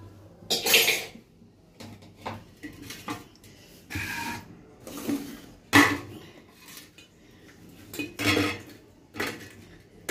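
Stainless steel plates and bowls clattering as they are set down and moved on a counter: about half a dozen separate knocks, a few with a short metallic ring.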